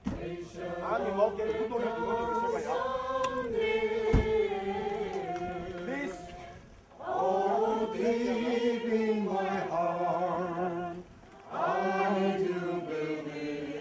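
A crowd of marchers singing together in unison, in long held phrases that break off briefly twice.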